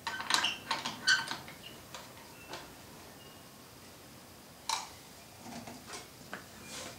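Metal woodworking clamps clicking and clattering as they are adjusted and tightened: a quick flurry of clicks in the first second and a half, then scattered single clicks, the sharpest a little under five seconds in.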